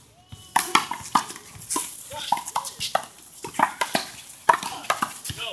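Handball rally on a one-wall court: a run of quick, irregular sharp smacks as the ball is struck by hand and rebounds off the wall and ground, with players' shoes scuffing on the court between hits.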